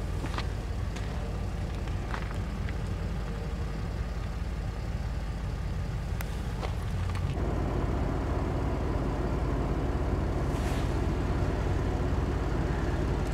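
A vehicle engine idling with a steady low hum. About seven seconds in it grows fuller and slightly louder.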